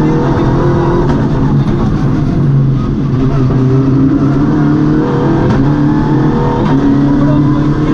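MINI rally car's engine heard from inside the cabin while driving a stage flat out, its revs rising and dropping several times as the driver works through the gears.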